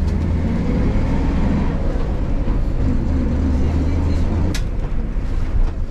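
City bus engine running with a loud, low drone, heard from inside the passenger cabin. About four and a half seconds in the drone's pitch drops, and there is a single sharp knock.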